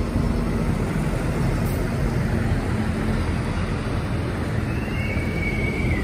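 Heavy diesel engines of tractors and trucks running steadily close by, a continuous low rumble. A thin, high steady tone joins in for about the last second.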